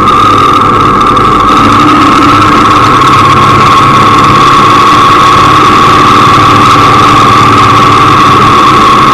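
Loud motorcycle engine running steadily, close to the microphone, its pitch nearly constant with a strong high steady whine.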